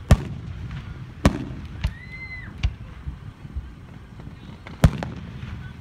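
Aerial firework shells bursting overhead: a series of sharp booms over a low rumble, the loudest right at the start and about five seconds in.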